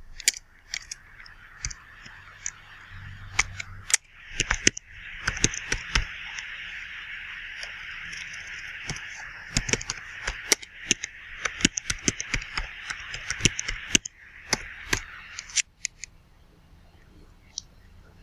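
Computer keyboard typing: irregular runs of sharp key clicks. Under it is a steady hiss that cuts off sharply about three-quarters of the way through.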